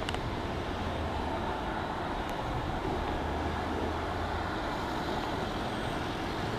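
A moving road vehicle's engine drone and road noise, heard from inside: a steady low hum under a wash of rolling noise.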